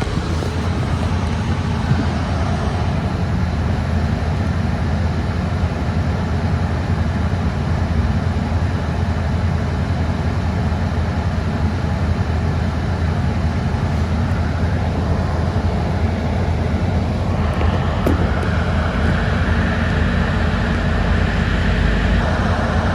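Inside a city bus on the move: a steady low engine and road rumble, with a higher rushing noise building up about three-quarters of the way through as the bus gathers speed.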